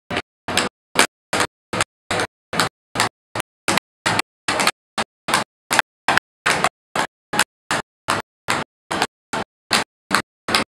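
Tap shoes striking a dance board in a steady rhythm of short clicking taps, about three a second, with silence between them.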